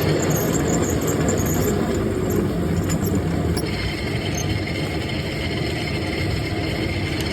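Workshop machinery running steadily: a constant mechanical hum with a faint steady whine over it.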